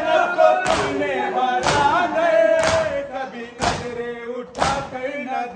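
Men performing matam, slapping their chests in unison, with a sharp stroke about once a second. Between the strokes a man sings a noha lament.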